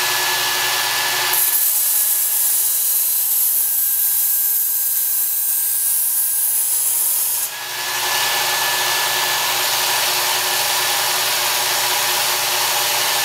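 Work Sharp Ken Onion Edition electric belt sharpener running steadily with a P120 abrasive belt, with a steady high whine. From about a second and a half in to about seven and a half seconds, a knife edge is ground against the moving belt, giving a bright hiss. Then the motor runs on alone.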